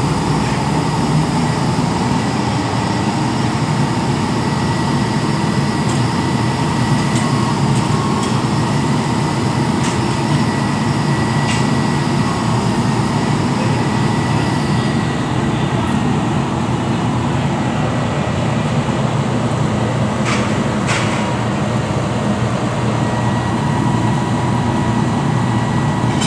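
Fire apparatus diesel engines running steadily, with a steady faint whine above the engine drone. A couple of short knocks sound about twenty seconds in.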